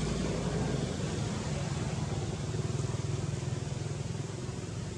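A motor engine running steadily: a low rumble over a hiss, easing off slightly near the end.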